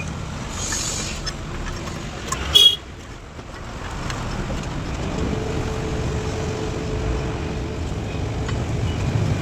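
Truck engine running steadily, with a short, loud high-pitched squeal about two and a half seconds in.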